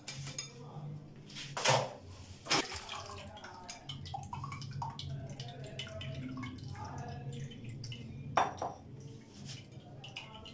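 Sweet potato and custard mixture poured and dripping through a steel mesh strainer into a glass bowl, with a few sharp clinks of the strainer, spoon and bowls, the loudest about eight seconds in.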